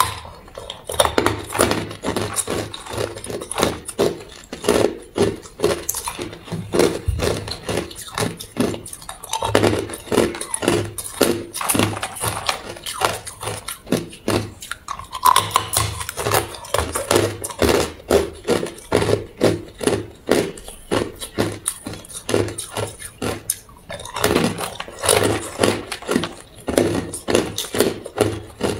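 Hard clear ice being bitten and crunched between the teeth: rapid runs of crisp cracks in bursts, with short pauses between bites.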